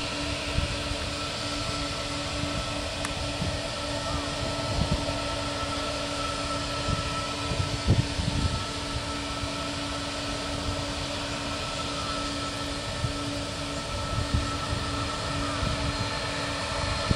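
Japan Airlines Boeing 777's twin jet engines running at taxi power as the airliner taxis onto the runway: a steady whine with a low hum, with irregular low rumbles underneath.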